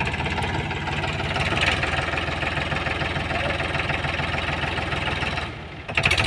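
Powertrac Euro 50 tractor's diesel engine running with a steady, fast beat while the tractor is bogged in mud with a loaded trolley; the sound dips briefly about five and a half seconds in, then returns.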